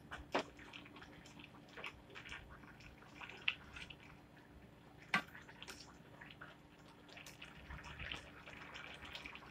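Spatula stirring cooking pineapple jam in a pan: faint wet stirring with scattered small clicks and ticks, and one sharper tap about five seconds in.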